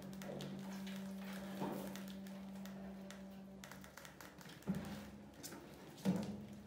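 Two sharp knocks about a second and a half apart, as mice scramble onto a plastic bucket trap with a cardboard lid. A steady low hum runs under the first half and stops a little before the knocks.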